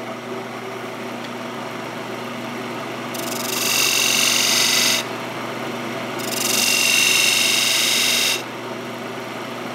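Wood lathe motor running with a steady hum while a skew chisel cuts decorative rings into a spinning mahogany blank. There are two spells of hissing cutting noise, each about two seconds long, starting about three and six seconds in, and each louder than the motor.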